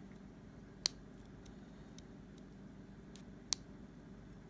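Faint metallic clicks of a short hook pick working the pin stack of a Brinks ProMax padlock under tension: two sharper clicks, about a second in and past three seconds, with a few fainter ticks between.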